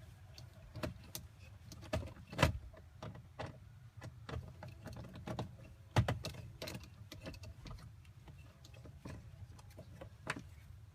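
Irregular clicks, taps and knocks of a screw being backed out and plastic dashboard trim panels being handled and loosened, with sharper knocks about two and a half and six seconds in.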